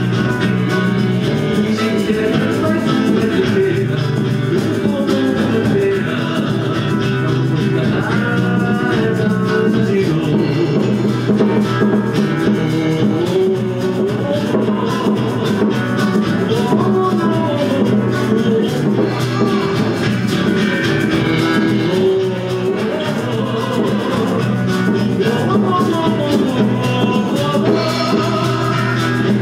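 Live band playing a samba: sung vocals over strummed guitar, violin and drum kit, at a steady loud level without a break.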